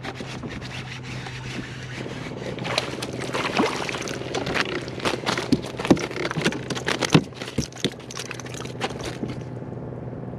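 Small porgy landed in a kayak: from about two and a half seconds in, a run of sharp knocks, slaps and scrapes as the fish flaps in the angler's lap and against the hull and is handled for unhooking. A steady low hum runs underneath.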